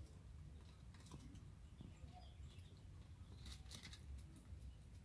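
Near silence: a faint low rumble of room tone with a few soft, scattered ticks and rustles, a couple of them near the end.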